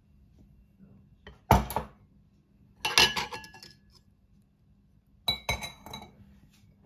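Kitchen dishes clinking as they are handled: three short bursts of knocks and clinks, the first with a dull thump and the later two with brief ringing.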